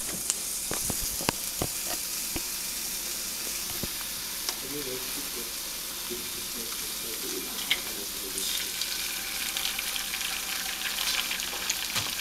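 Egg frying in a cast-iron skillet: a steady sizzle, with a few sharp clicks in the first couple of seconds. The sizzle grows louder about eight seconds in.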